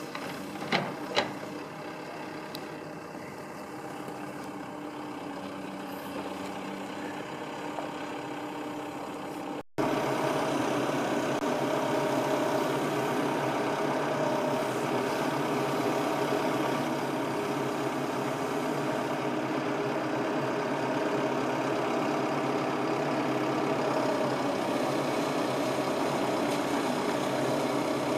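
Backhoe loader's diesel engine running steadily as it digs, with two sharp knocks about a second in. About ten seconds in, the engine sound becomes louder and closer.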